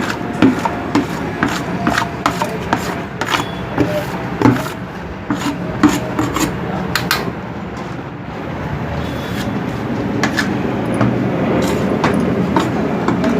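Commercial wet-grinding mill running steadily as it grinds soaked rice into idli batter on a second pass, with a grinding rasp and frequent irregular clicks and knocks.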